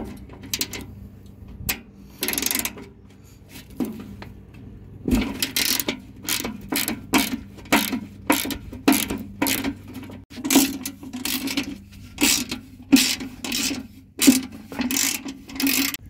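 Socket ratchet clicking as it loosens a rusted lock nut on a steel mower deck: a few single clicks at first, then from about five seconds in a steady run of short ratcheting strokes, about one and a half a second.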